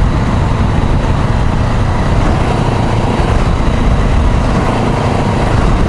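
Motorcycle riding at road speed: steady wind rush on the microphone with the engine running underneath.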